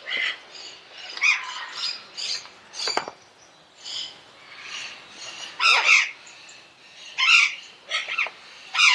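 Parrot calling in a string of short squawks and chirps, a dozen or so separate calls with gaps between them, the loudest about six and seven seconds in.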